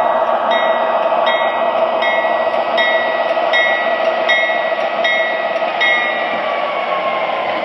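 MTH O-gauge model BNSF diesel locomotive's sound system ringing its bell, a stroke about every three-quarters of a second, over the steady hum of the diesel sound and the motor and wheels on the track. The bell stops about six seconds in, and a whine falls slightly in pitch as the locomotive slows.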